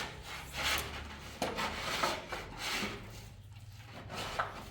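Repeated scraping strokes of a hand tool drawn over a hard surface, about six strokes, each a short rasping sweep.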